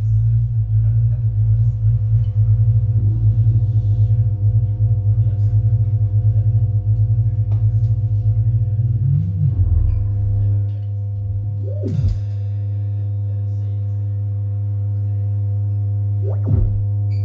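Improvised electric guitar and bass music through effects pedals: a loud low drone with steady higher tones above it. The drone pulses quickly for the first ten seconds or so, then holds steady. A few sliding notes swoop up and back down.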